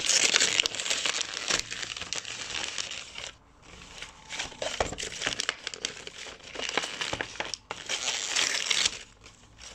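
Christmas wrapping paper being crumpled and torn by hand as a present is unwrapped. The rustling comes in several bursts, with short pauses about three and a half seconds in and near the end.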